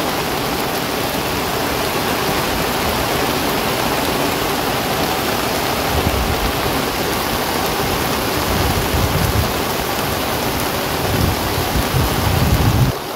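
Heavy rain pouring down onto river water, a steady dense hiss of drops. A low rumble swells in now and then during the second half.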